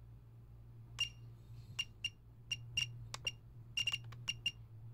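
ToolkitRC Q6AC battery charger's key beeper giving about a dozen short, high-pitched beeps at uneven intervals, some in quick pairs, as its scroll wheel is turned and pressed to move through the menu.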